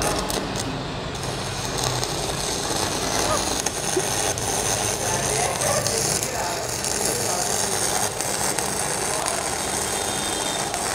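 Stick (MMA) welding arcs from two mini inverter welders burning 2.5 mm electrodes at maximum current, making a steady crackling sizzle.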